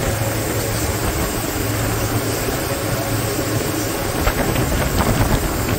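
Twin Suzuki outboard motors running at speed, a steady low engine hum under a loud rush of water from the wake. There are a few brief sharp knocks about four to five seconds in.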